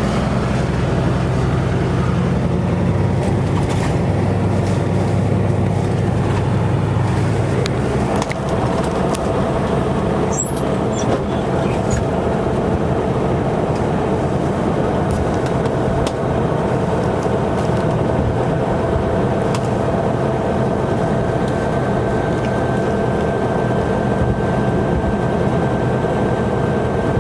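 Straight-piped, unmuffled Caterpillar C15 inline-six diesel truck engine running steadily under way, heard from inside the cab along with road noise. Its low exhaust drone is strong for the first eight seconds or so, then drops back.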